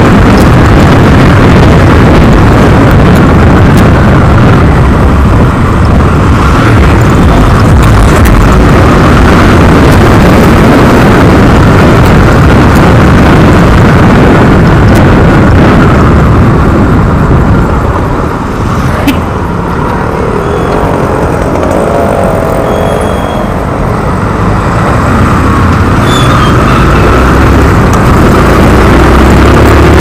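Wind buffeting a helmet-mounted action camera's microphone during a motorcycle ride, loud and rumbling, with the motorcycle's engine and passing traffic underneath. It eases a little about two-thirds of the way through.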